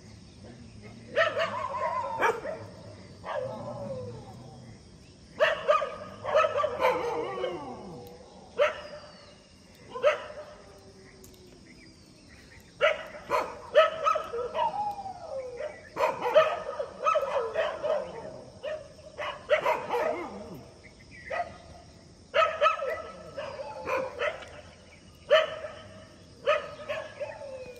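Street dogs barking and yelping at each other in a fight, in about eight bouts a second or two long with short pauses between.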